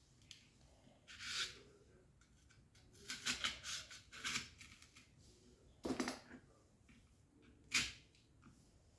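Scattered handling noises of craft work: a brief rustle, then a run of small clicks and scrapes, and two sharp clicks later on, as skewered soap flowers and materials are handled.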